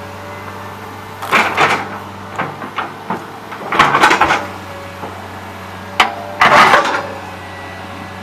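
John Deere 690E excavator running with a steady engine drone, broken three times by loud, harsh bursts of crunching and scraping as it works rock, with a sharp click just before the last burst.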